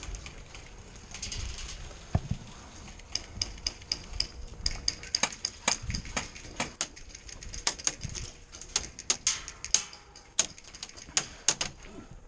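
Airsoft gunfire: many sharp clicks and snaps in irregular clusters, starting about three seconds in and thinning out near the end.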